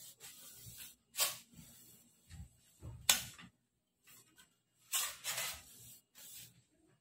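Off-screen kitchen handling noises: rustling and a few sharp knocks and clatters, the loudest about three seconds in with a dull thud, and another cluster about five seconds in.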